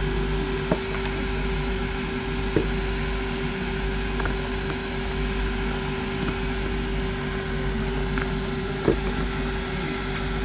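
Steady machine hum of workshop equipment, with a few short sharp clicks as the boot's insole is worked loose and lifted up.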